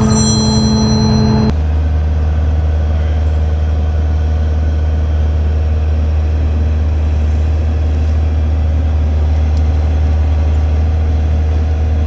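A Kubota mini excavator's diesel engine running steadily with a low drone as it works stuck in the mud. About a second and a half in, a higher-pitched mechanical whine with several tones cuts off abruptly and leaves only the low engine drone.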